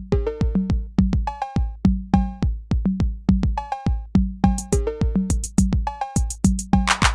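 Electronic background music: a steady drum-machine beat with bass-drum hits under short, repeating synth notes and bright hi-hat-like hits.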